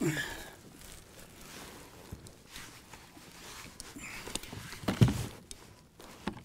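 A large lake trout and a landing net being handled in a plastic fishing kayak: rustling and scattered light knocks, with one heavy thump about five seconds in.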